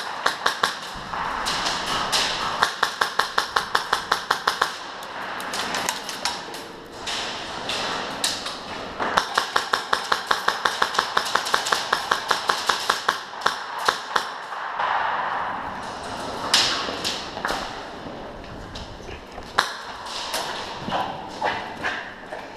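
Airsoft guns firing in long rapid strings of shots, about five or six a second, with pauses between strings. In the second half only scattered single cracks are heard.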